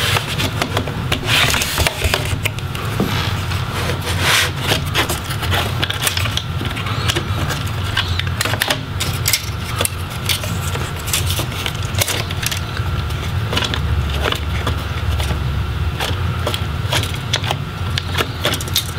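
Plastic bottom case of a laptop being pried off the palm rest by hand: many irregular clicks and small pops as the snap clips let go, with plastic scraping and rubbing, over a steady low hum.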